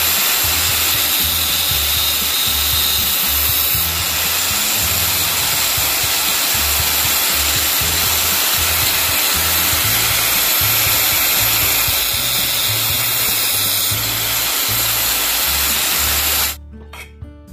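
Electric angle grinder running at speed, a steel twist drill bit held against its spinning disc to sharpen the tip; the grinder cuts off suddenly about a second before the end. Background music with a bass line runs underneath.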